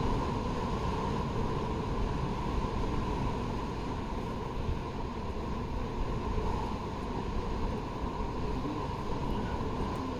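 Wind buffeting the microphone: a steady low rumbling noise with no distinct events.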